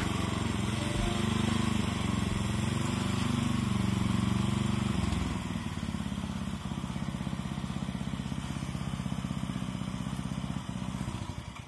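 Small petrol engine of a motor cultivator running as its rotary tines work the soil. About halfway through it drops to a quieter, evenly pulsing idle.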